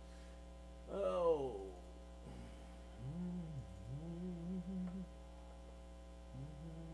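Steady electrical mains hum from audio equipment. About a second in, a short pitched sound glides downward, and from about three to five seconds there are low, wavering voice-like tones.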